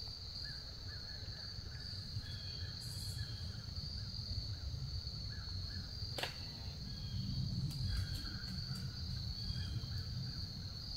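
Woodland ambience dominated by a steady high-pitched insect drone, with faint short bird chirps in the first few seconds and a low rumble that swells past the middle. A single sharp click comes about six seconds in, and a few light ticks follow soon after.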